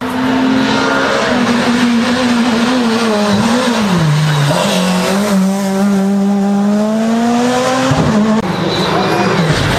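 Rally car engines revving hard through corners on a tarmac stage. The engine note dips about four seconds in as the car slows, then climbs again, and changes abruptly about eight seconds in.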